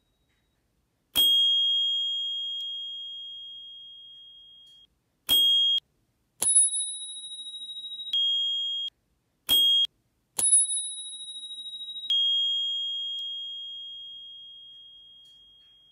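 Two bicycle bells, a Knog Oi Luxe and a Spurcycle Bell, rung in turn: five single strikes, each a sharp ping followed by a clear ringing tone. Two slightly different pitches alternate, the higher one with a wavering ring; some rings carry on for several seconds, others are stopped within half a second.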